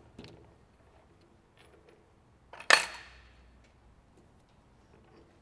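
A single sharp metal-on-metal clank with a short ring about two and a half seconds in, from taking the turned shaft out of the lathe chuck; otherwise a few faint handling clicks.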